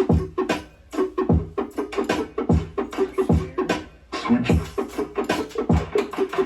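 Electronic bass music with a heavy beat: deep falling kick-drum hits about every 0.6 to 0.8 s under sharp percussion and scratch-like sounds.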